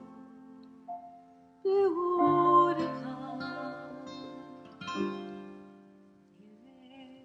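Grand piano and acoustic guitar playing a slow song, with a woman singing. New chords come in about two seconds in and again about five seconds in, and the music dies away toward the end.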